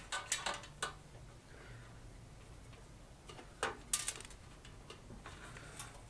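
Light clicks and taps of small metal hardware (screws and a screwdriver) being handled while the panel is taken apart. A quick run of clicks in the first second, then a couple more about three and a half to four seconds in.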